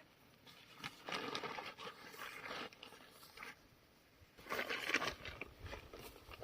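Rustling and crunching handling noises in two bursts, about a second in and again about four and a half seconds in, with a few small clicks.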